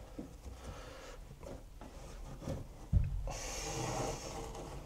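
Handling noise of fluffy wool insulation being pushed into a van door cavity: soft rubbing and rustling, a dull thump about three seconds in, then a hiss lasting about a second.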